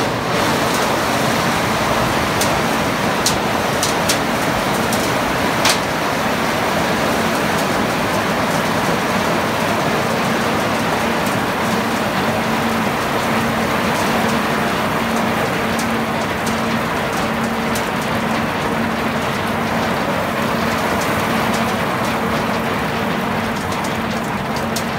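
A load of harvested olives pouring off a tipping trailer into a concrete reception hopper: a steady rush of pattering like heavy rain, with a few sharp clicks in the first few seconds. A steady engine hum runs underneath.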